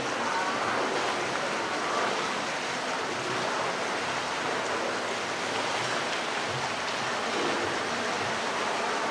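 Steady rush of flowing water in a polar bear's pool.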